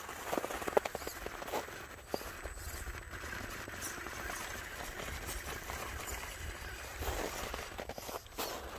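Axial Capra 4WS RC rock crawler climbing a rock pile: its tyres and chassis click, knock and scrape on rock and crusted snow over a steady low drivetrain hum. The knocks come in clusters near the start and again near the end.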